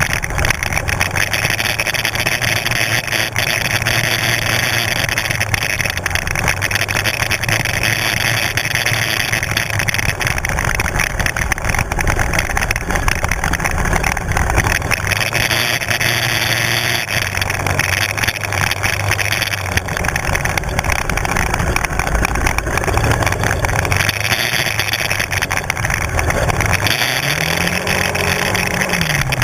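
Engine of a Kymco 250 sport quad running as it rides a dirt forest track, under a steady rushing noise. Near the end the engine note rises briefly and falls back.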